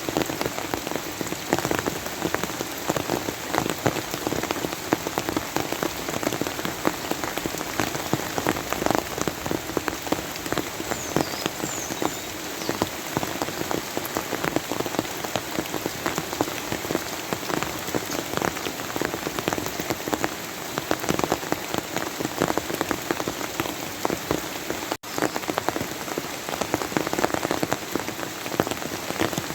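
Steady rain falling on a surface: a dense, even patter of countless individual drops. It cuts out for a split second near the end.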